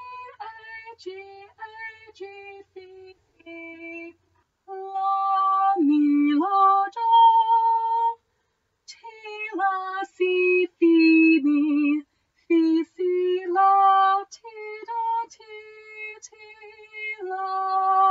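A woman singing a melody unaccompanied on note names, one note after another, as a sight-singing exercise, with short breaks about four, eight and twelve seconds in.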